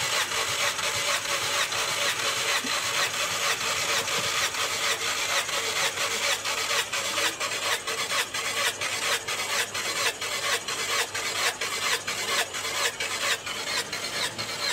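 Skoda Superb petrol engine cranked over on its starter motor with a compression gauge in one plug hole, a steady churning with an even pulse from the compression strokes, for a dry compression test. It stops right at the end.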